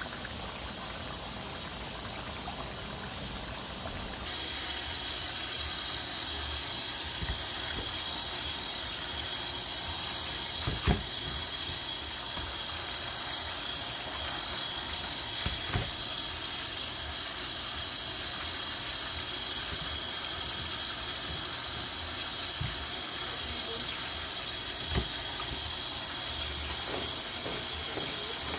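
A pot of beef curry simmering for about the first four seconds, then a kitchen tap running steadily onto cut kabocha squash pieces in a plastic colander over a steel sink. A few sharp knocks stand out, the loudest about eleven seconds in.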